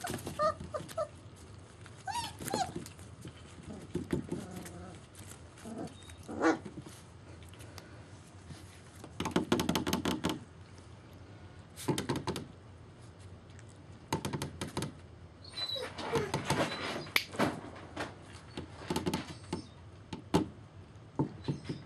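German Shepherd puppies playing together: scattered small whimpers and yips, with bursts of scuffling on crumpled paper bedding and thunks against the plastic pen.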